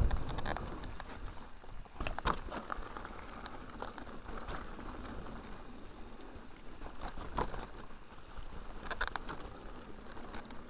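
Mountain bike riding down a rough dirt and grass track: tyres rumbling over the ground, with rattles and knocks from the bike as it hits bumps. Sharper clacks come about two, seven and nine seconds in.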